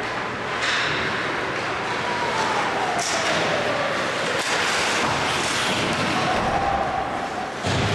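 Ice hockey game in a rink: skates on the ice, stick and puck knocks and spectators' calls over a steady crowd murmur in a large echoing hall, with a sudden loud burst near the end.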